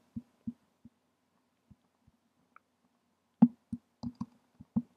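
Scattered soft taps from a computer mouse being clicked and scrolled: a few at first, then a quicker cluster about three and a half seconds in.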